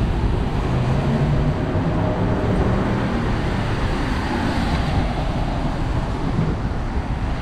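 City street traffic crossing an intersection on wet pavement: car engines running and tyres hissing on the rain-wet road.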